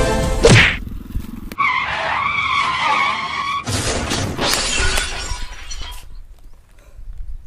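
Music cuts off about half a second in. A tyre-skid sound effect follows, a wavering squeal lasting about two seconds, and then a crash effect of breaking and shattering for about two more seconds, for the motorcycle going down.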